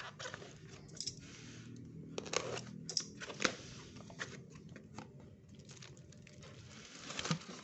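Unboxing handling noise: packaging crinkling and parts being handled, with scattered clicks and taps.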